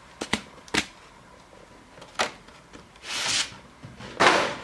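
Trading-card packaging being handled: a few light clicks and taps, then two short scraping rustles about three and four seconds in, the second the loudest, as the jumbo card is got out of the collection box.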